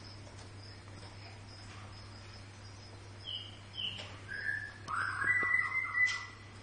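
White-rumped shama calling: a few short separate notes from about three seconds in, then a louder, buzzy phrase topped by a held higher note that stops abruptly about six seconds in.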